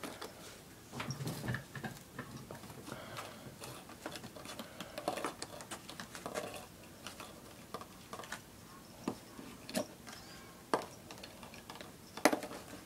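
A cat playing with a plastic drinking straw: irregular light clicks and taps with soft plastic rustling, and a few sharper clicks near the end.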